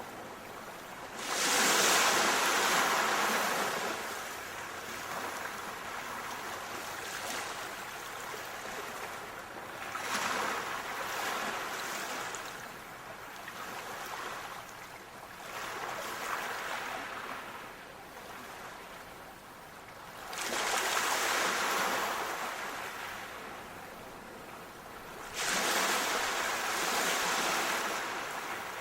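Sea waves washing in on a shore, five swells of surf each rising and ebbing over a few seconds, the loudest surging in about a second in and twice near the end.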